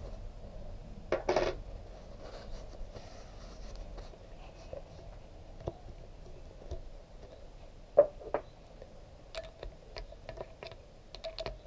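Small metal motorcycle fork parts clinking and tapping against each other as they are handled and wiped: a short metallic clatter about a second in, two sharp clinks about eight seconds in, then a run of light taps near the end.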